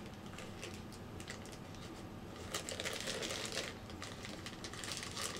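Packaging being opened by hand: light crinkling and rustling with small clicks, busiest around the middle.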